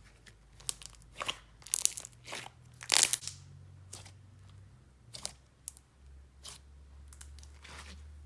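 Jelly slime being squished and stretched by hand: irregular sticky crackles and pops, loudest about three seconds in.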